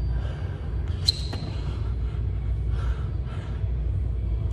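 A man doing burpees on a gym floor, breathing hard, with a single sharp knock about a second in, over a steady low rumble of room noise.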